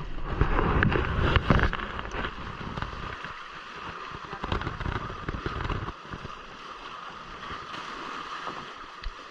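Water rushing and gurgling past the hulls of a Hobie Cat catamaran under sail, with wind buffeting the microphone loudly for about the first two seconds.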